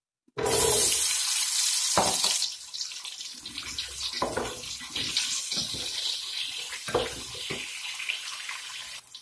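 Cut raw potatoes tipped into hot cooking oil in an aluminium pot: a loud sizzle that begins suddenly and settles after about two seconds into a steadier frying sizzle. A wooden spoon stirring the potatoes knocks against the pot several times.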